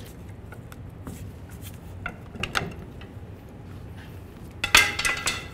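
Scattered light metallic clicks, then a short cluster of louder metal clanks near the end, from the rear driveshaft's U-joint being pried off the differential pinion yoke and lowered away.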